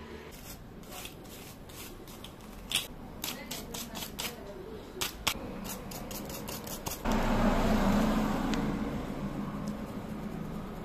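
A run of sharp clicks as an electric dog grooming clipper and its blade are handled. About seven seconds in the clipper is switched on and buzzes steadily.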